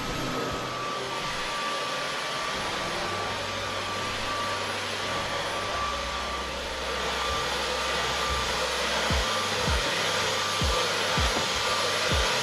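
Dyson V11 cordless stick vacuum running steadily: an even rush of air with a steady high motor whine. Background music with a bass line comes in about a quarter of the way in, with kick-drum thumps in the second half.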